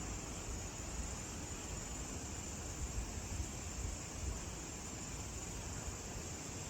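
Steady outdoor ambience: an even hiss over a low, unsteady rumble, with a steady high-pitched drone throughout and a few slight bumps near the middle.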